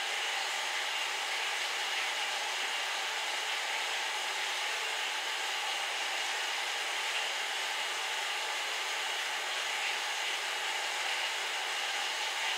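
A steady, even hiss of rushing-air-like noise, with no distinct crunches or knocks standing out from it.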